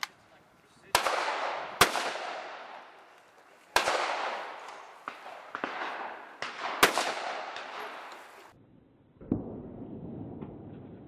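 Gunshots echoing across an outdoor range: four single shots, one to three seconds apart, each with a long echo that dies away. Near the end the sound changes abruptly to a quieter background with a dull thump and a few faint clicks.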